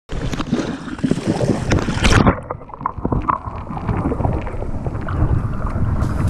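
Rough, rushing noise of a mountain stream and wind buffeting the microphone, with handling and scuffing. About two seconds in comes a loud knock, after which the sound turns muffled.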